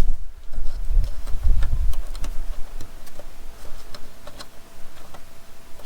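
Scattered small clicks and taps with low thumps in the first two seconds: a rubber grommet being pushed and worked into a drilled hole in a car's sheet-metal body panel.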